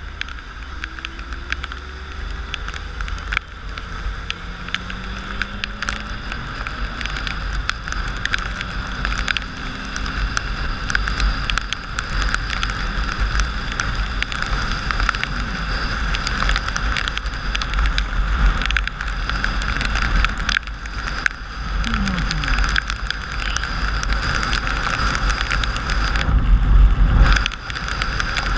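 Riding a motorcycle in heavy rain: a steady low wind rumble and wet-road tyre hiss, with many quick ticks from raindrops striking the camera. It swells louder shortly before the end, then drops briefly.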